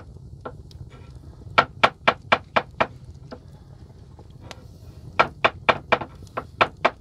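Knife chopping on a cutting board: two runs of quick, sharp, evenly spaced strikes, about four a second. The first run starts about one and a half seconds in, and a longer one starts about five seconds in.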